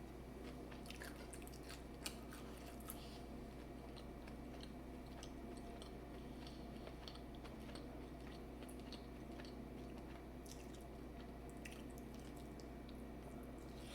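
A person eating seafood boil: soft chewing with small wet squishes and clicks, one sharper click about two seconds in.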